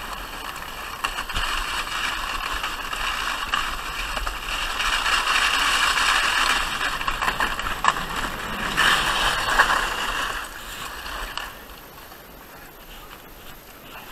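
Sledge sliding fast down a packed-snow path: a steady scraping hiss of the sledge on the snow, with a few sharp knocks over bumps. The hiss cuts off about eleven seconds in as the sledge comes to a stop.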